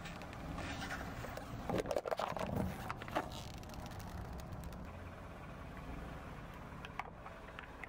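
Car engine running at a slow crawl, with tyre noise on asphalt. There are crunches and cracks about two and three seconds in as the tyre rolls over and crushes things, and a few light clicks near the end.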